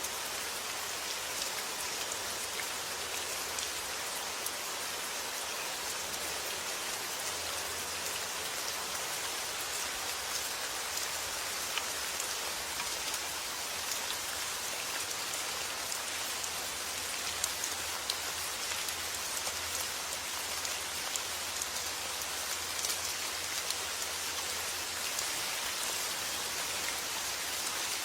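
Steady summer rain falling on surfaces, a constant hiss with many individual drops ticking through it.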